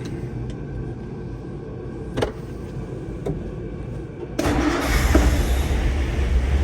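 1957 Ford Thunderbird's 312 Y-block V8 being started: a couple of clicks, then the engine fires about four seconds in and keeps running.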